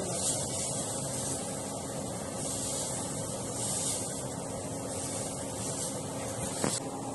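Steady hum and hiss of a commercial kitchen's ventilation, with irregular rubbing and scraping noises that swell every second or so.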